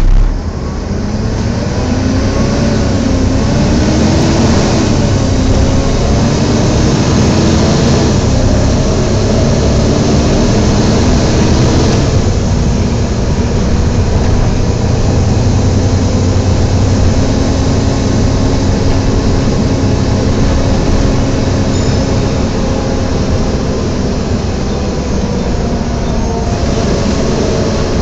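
Inside a Volvo B7TL double-decker bus, its engine cooling fan running with a loud, vacuum-cleaner-like 'hoover' roar over the drive. Under it the engine and transmission note rises and drops several times in the first twelve seconds, then holds steady.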